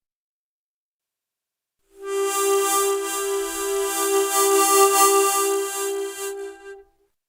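Harmonica playing one chord in quick even pulses, about three a second, for about five seconds. It starts about two seconds in and fades out near the end.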